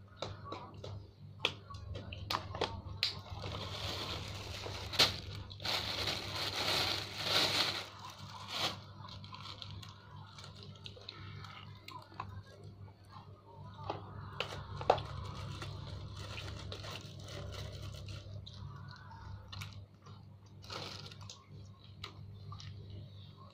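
A child eating fried rice by hand from a paper wrapper: chewing and small clicks, with rustling and crinkling of the paper, heaviest about four to eight seconds in, over a steady low hum.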